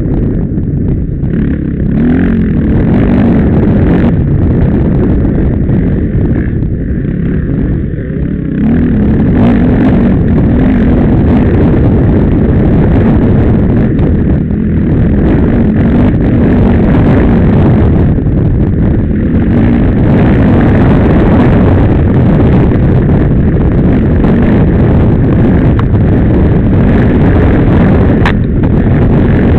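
Dirt bike engine running hard on a rough trail, its revs rising and falling with the throttle. Wind buffets the microphone, and the engine gets louder about eight seconds in.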